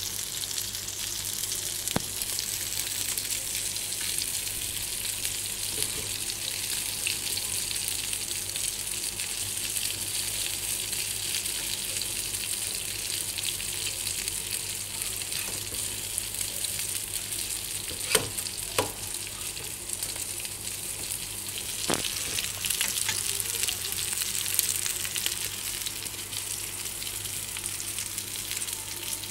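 Potato and chicken cutlets shallow-frying in very little oil in a frying pan, a steady sizzle, with a few sharp taps, twice close together about two-thirds of the way in.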